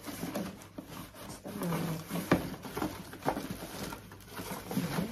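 Plastic wrapping rustling and stainless steel pots knocking as a cookware set is packed back into its cardboard box, with the sharpest knock about two seconds in.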